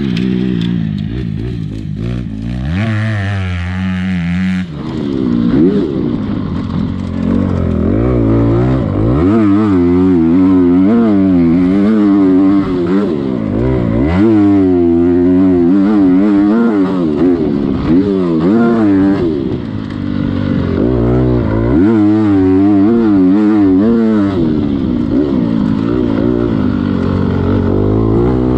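Motocross dirt bike engine being ridden hard, its pitch climbing and dropping again and again as the throttle opens and shuts and it changes gear. Heard close up, from a camera mounted on the bike.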